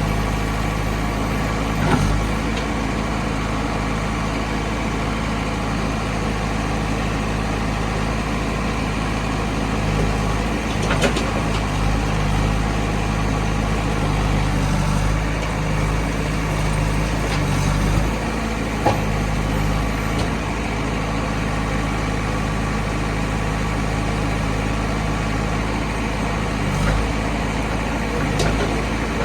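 Heavy diesel engine of a backhoe loader or tractor running steadily at low speed, with a few short knocks now and then.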